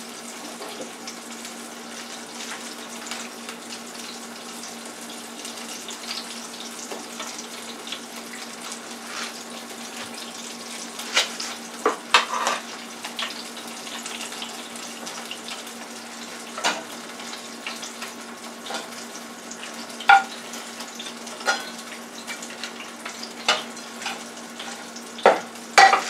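Battered raw yam slices deep-frying in the oil of a Farberware electric deep fryer: a steady sizzle with a low hum underneath. From about eleven seconds in, scattered sharp clicks and knocks of a utensil on the plate and fryer cut through the sizzle.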